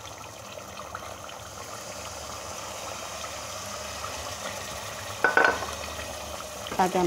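Beef and spice masala sizzling steadily as it fries in an aluminium pressure cooker pot, with a little water just added so the masala does not burn. A short, louder sound cuts in about five seconds in.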